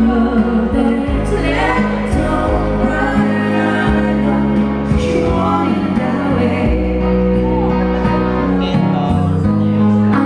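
Live band playing a song with a singer, amplified loud through the bar's speakers.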